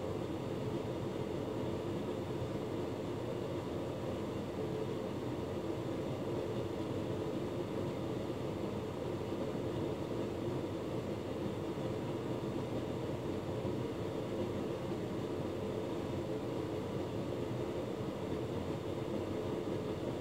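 Hotpoint Ultima S-Line tumble dryer running mid-cycle, a steady even machine hum with no knocks or changes.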